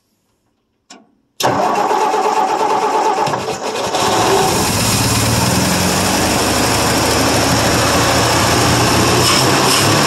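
1959 Ford F250's inline six-cylinder engine cold-started after sitting three to four years: a click, then the starter cranks it and it fires unevenly for a couple of seconds before catching and settling into a steady run.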